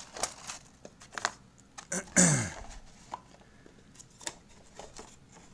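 Wooden cigar boxes being handled: light knocks and taps of wood on wood, with one louder scrape about two seconds in that falls in pitch as a box or drawer slides.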